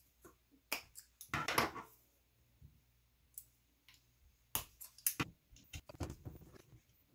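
Metal RC crawler suspension links, pliers and a hex driver handled on a workbench, making a series of sharp irregular clicks. There is a short rasp about a second and a half in and a denser run of clicks near the end.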